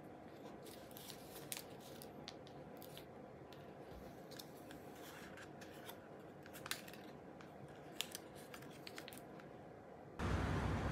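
Scissors snipping paper: a scattered series of faint short snips and rustles. About ten seconds in it cuts to a louder steady rumble of wind on the microphone.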